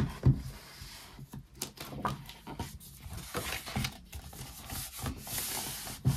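A hardcover notebook handled on a desk: paper rustling as its pages are opened and pressed flat, with many small knocks and taps, the loudest near the start.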